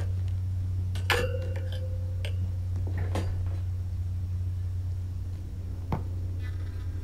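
Scattered light knocks and clinks over a steady low hum. The loudest comes about a second in and leaves a short ringing tone.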